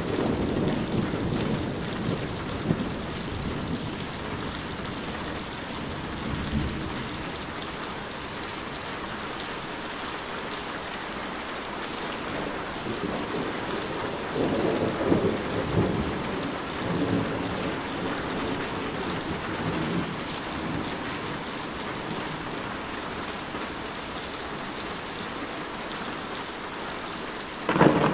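Heavy rain falling steadily, with thunder: a low rumble dying away over the first several seconds, another rolling rumble about halfway through, and a sudden loud thunderclap near the end.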